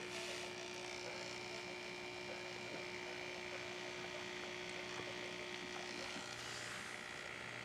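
Fog machine's electric pump humming steadily. It is the faulty pump, which the owner finds gives little pressure.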